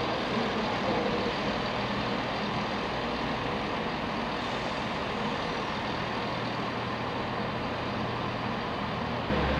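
First ScotRail Class 170 Turbostar diesel multiple unit moving along the platform, its underfloor diesel engines giving a steady low hum under an even rushing noise. Near the end the sound switches abruptly to a deeper rumble.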